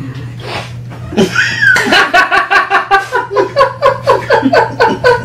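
Several men laughing hard, breaking out about a second in and going on as rapid repeated ha-ha pulses, about five a second.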